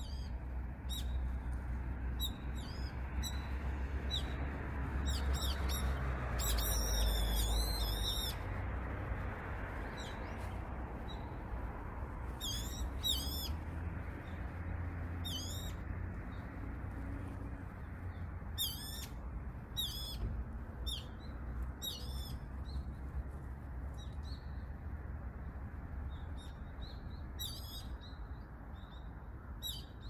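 Birds giving high, thin, wavering calls at irregular intervals, with a quick run of calls about seven seconds in, over a steady low background rumble.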